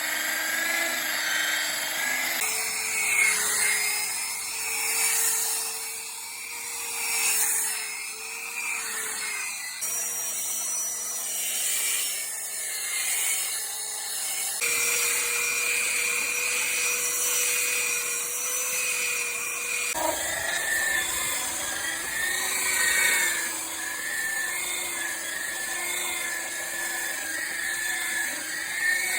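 A small power tool whining steadily as it works wood. Its pitch jumps abruptly a few times.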